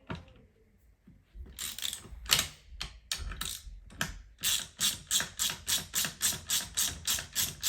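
Ratchet wrench clicking as it undoes a seat-rail bolt on a car seat. A few irregular strokes come first, then a quick, even run of about three strokes a second from about halfway through.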